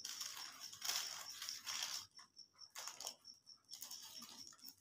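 Paper wrapper on a chicken shawarma roll crinkling and tearing in irregular rustles as it is peeled back by hand.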